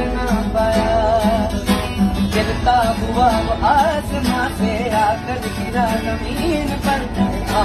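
Background music: a song with a singing voice and plucked guitar.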